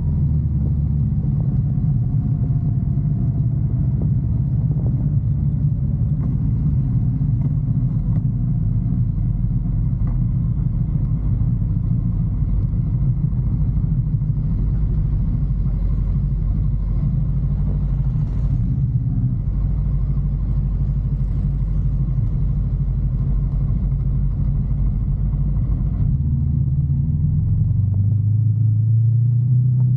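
Sport bike engine running steadily at low revs in slow traffic. Its pitch rises over the last few seconds as it accelerates away.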